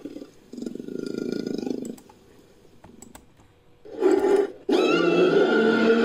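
Bear-like creature sound effect built from bear recordings: a deep growling call lasting over a second about half a second in, then after a pause a second, shorter call about four seconds in. Near the end it is cut off abruptly as music with steady held notes begins.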